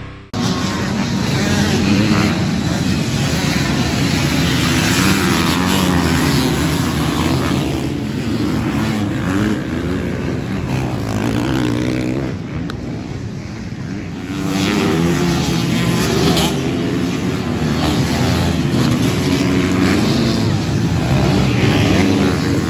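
Motocross dirt bikes racing on a track, engines revving hard and dropping off again and again as the riders work the throttle over the jumps and past the spectators.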